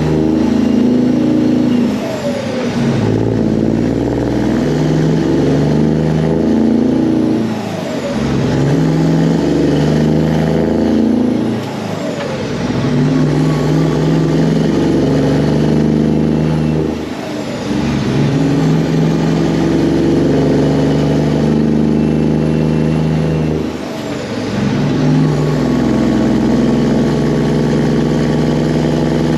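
Loaded Peterbilt semi truck's diesel engine pulling steadily, with five short breaks as the driver shifts up through the gears, the breaks coming further apart.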